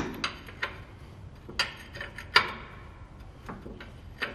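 Wrench on the last large mounting nut of a semi-truck's air brake chamber: a handful of separate sharp metal clicks and clinks at uneven spacing, the loudest about two and a half seconds in.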